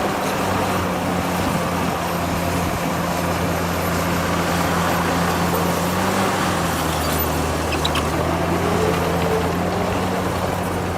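Heavy diesel engine of construction machinery running steadily under load. Its note dips slightly a little past halfway, and a faint rising whine comes in near the end.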